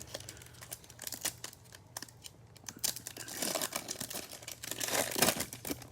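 A Topps Chrome baseball card pack's wrapper being torn open and crinkled by hand, with crackling that builds up in the second half.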